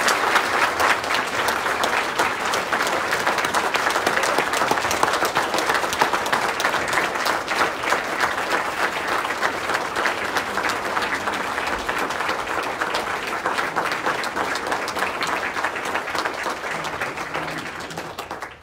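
Congregation applauding: a long round of dense clapping that tapers off near the end.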